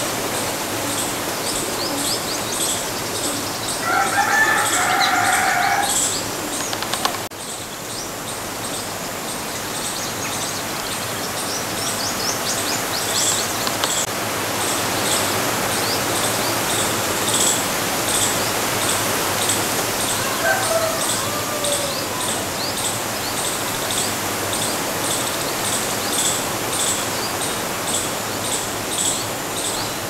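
Small birds chirping at a high pitch, over and over, with a loud bird call lasting about two seconds about four seconds in and a fainter one about twenty seconds in.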